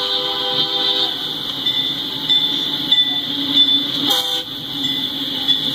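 Air horn of an approaching CN freight locomotive sounding a multi-note chord. A long blast ends about a second in and a short toot follows about four seconds in, part of the long-long-short-long grade-crossing signal.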